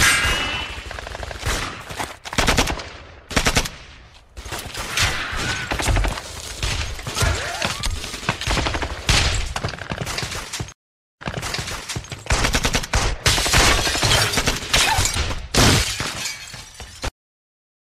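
Heavy gunfire: rapid volleys of shots and automatic fire packed closely together, dropping out briefly about eleven seconds in and cutting off suddenly near the end.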